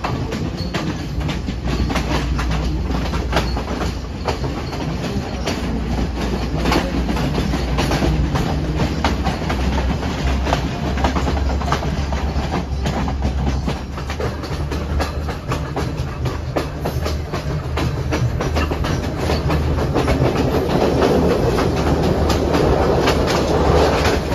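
Passenger train running along its track, heard from an open carriage doorway: a steady low rumble with the wheels clicking over the rail joints, growing somewhat louder near the end.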